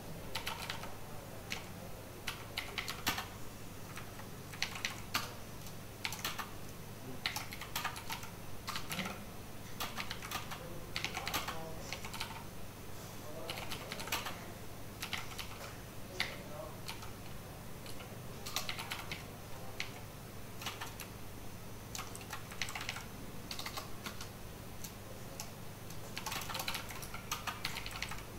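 Typing on a computer keyboard: quick runs of keystrokes with short pauses between them, over a low steady hum.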